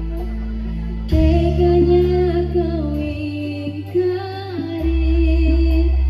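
Live Javanese jaran kepang accompaniment music: a woman singing a wavering melodic line over steady held bass and drone notes. The music swells louder suddenly about a second in.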